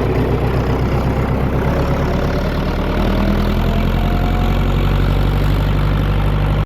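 Vehicle engine running steadily while under way, its pitch rising slightly about three seconds in.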